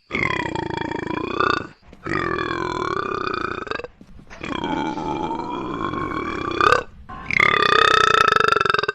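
A girl letting out four long, deep burps in a row, each lasting about one and a half to two and a half seconds, with short pauses between them.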